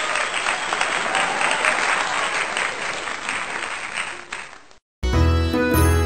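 Applause sound effect, a dense crackle of many hands clapping, fading out near the end. Music with a steady bass line starts about five seconds in.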